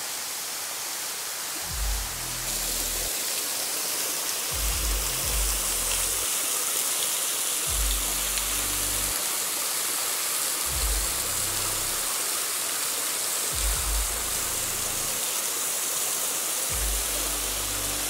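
A thin waterfall pours as a curtain of drops over a rock overhang and splashes onto rocks, making a steady rushing hiss of falling water. Soft background music with held low notes comes in every few seconds, starting about two seconds in.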